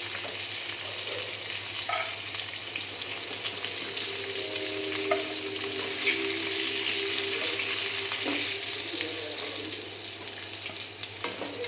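Marinated chicken pieces frying in hot oil in a pan: a steady sizzle, with a few light clicks.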